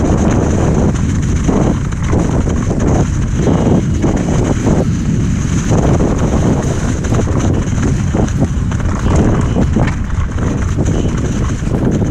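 Heavy wind buffeting on the camera microphone during a mountain-bike ride: a loud, steady rumble heaviest in the low end.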